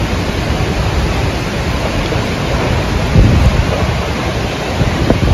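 Loud, steady roar of a waterfall, with wind buffeting the microphone in low gusts, hardest about three seconds in.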